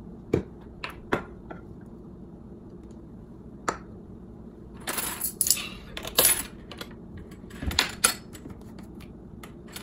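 Plastic bottles and caps being handled on a kitchen countertop: a few sharp clicks and knocks, then bursts of clinking and rattling in the second half.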